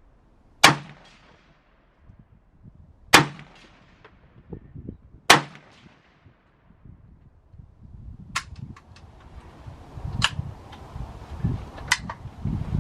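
Three single rifle shots from an AK-pattern rifle, about two and a half and then two seconds apart, each trailing off in an echo. After them come a few lighter metallic clicks and rustling, as the rifle is handled once it is empty.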